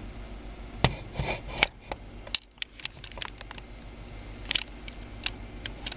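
Computer keyboard keys tapped in short, irregular runs of clicks, over a low steady hum.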